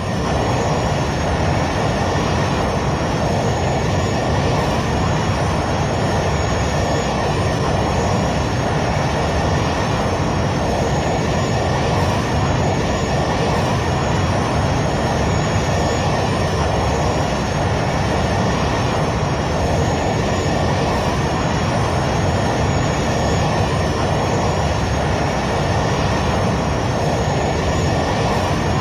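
Jet airliner noise: a steady, even rush of engine and airflow noise with a constant high whine that wavers slightly, unchanging throughout.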